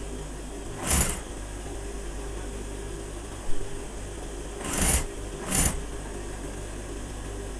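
Industrial sewing machine's motor humming steadily at rest. Over it come a few short rustling bursts and one sharp click as checked cotton fabric is shifted and positioned under the presser foot.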